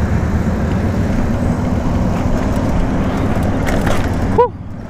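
Wind buffeting the microphone of a handlebar camera on a moving bicycle, a steady low rumble mixed with road noise. About four seconds in comes a short beep that falls in pitch, and then the noise suddenly drops away.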